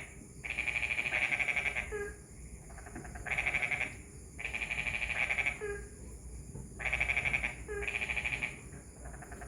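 Frog calls of the kind heard after rain: repeated trains of fast, high-pitched pulses, each lasting under a second and recurring every second or two, some back to back.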